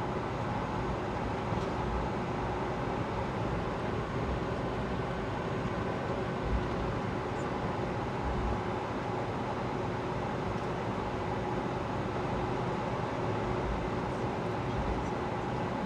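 Steady cabin noise inside a Boeing 757-200: its Pratt & Whitney PW2037 turbofans run at a constant setting under a low rumble and a few steady hums, with no build-up of power.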